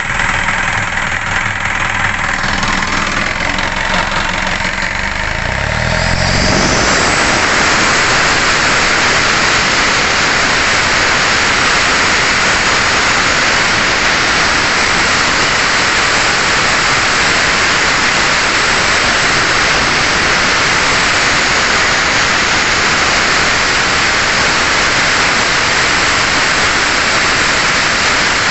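Isuzu NKR 71 truck's turbocharged diesel engine idling, then revved up about six seconds in and held at raised revs, 2000–3000 rpm, as a steady loud rush. This is a run-up test of the repaired turbocharger for oil leaks.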